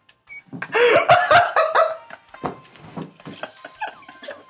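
Men laughing, loudest in a burst about a second in, then tapering into scattered chuckles.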